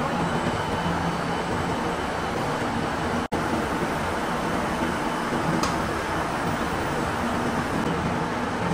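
Steady din of cotton spinning-mill machinery running, a dense even noise with a faint low hum. It cuts out for an instant about three seconds in.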